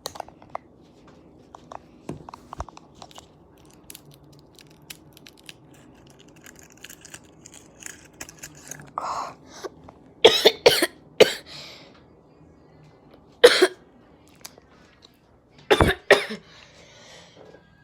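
A person coughing in short bursts: a single cough about halfway through, three quick coughs a second later, another a couple of seconds on, and two more near the end. Faint scattered clicks come before the coughing.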